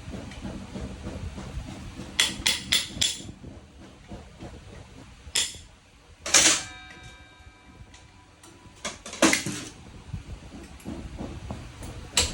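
Metal tools and parts knocking and clinking on a workbench: four quick taps about two seconds in, then a louder clank near the middle that leaves a brief metallic ring, and a few more knocks later.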